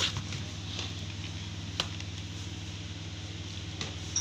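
A sharp knock as a Lenovo G50-70 laptop is turned over and set down on the bench, then a few light clicks and taps from handling it. A steady low hum runs underneath.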